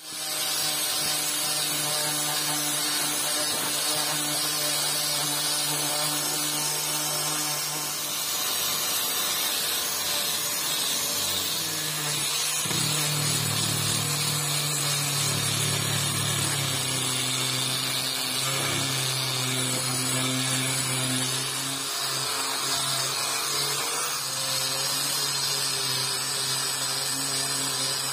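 Electric angle grinder with an abrasive sanding disc running continuously against a steel knife blade made from an old handsaw, grinding off rust and polishing the steel. A steady motor whine sits under a grinding hiss, and the pitch shifts slightly about halfway through.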